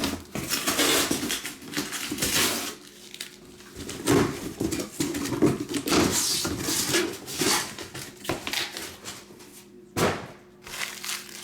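Sealed trading card packs being handled and stacked on a table: crinkling wrappers and packs sliding, with a sharp knock about ten seconds in.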